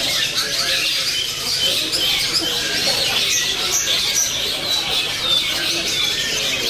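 Young long-tailed shrike (cendet) singing a fast, unbroken stream of short chirps and chattering notes, the rapid-fire 'sewing machine' delivery.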